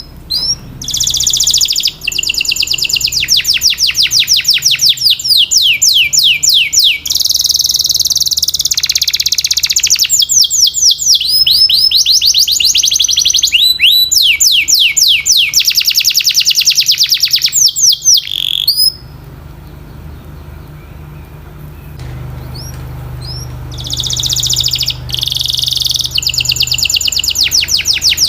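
Domestic canary singing long rapid trills of repeated falling notes. It breaks off about 19 seconds in and starts again a few seconds later.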